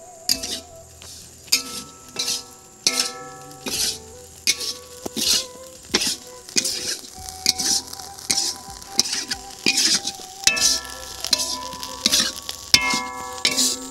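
Metal spatula stirring and scraping grated coconut as it dry-roasts in a steel wok, a scrape about every second or less. Soft background music plays beneath.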